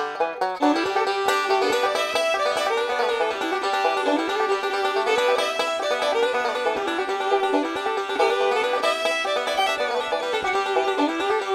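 Fast, upbeat background music led by plucked strings, like a banjo in a bluegrass style, with quick runs of short notes.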